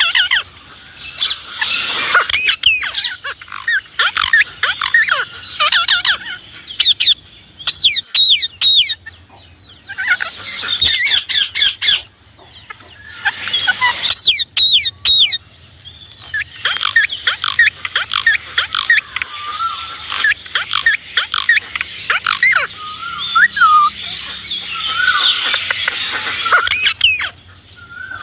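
Indian ringneck parakeet calling: bursts of high-pitched chattering and shrill, rapidly wavering squawks, broken by short pauses.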